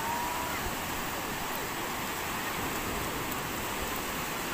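Steady rush of ocean surf breaking and washing on a beach.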